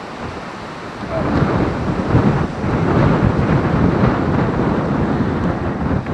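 Wind buffeting the microphone: a loud, rough rumble that swells about a second in.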